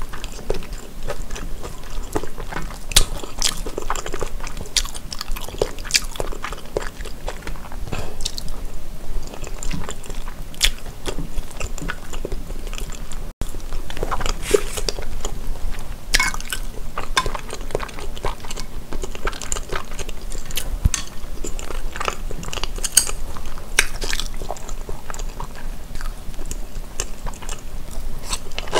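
Close-miked eating sounds of Korean snack food, mainly tteokbokki rice cakes: steady chewing and biting with many small sharp, wet clicks and occasional crunches.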